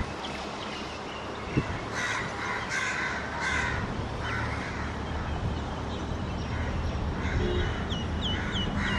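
Crows cawing several times, loudest about two to four seconds in, over the steady low rumble of an approaching electric freight train. A few short, high chirps come near the end.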